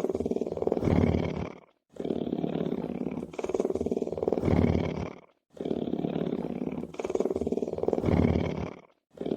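Lion purring: a low, finely pulsed rumble in two-part breaths, the second part louder. The same phrase repeats about every three and a half seconds, broken each time by a brief silent gap, as in a looped recording.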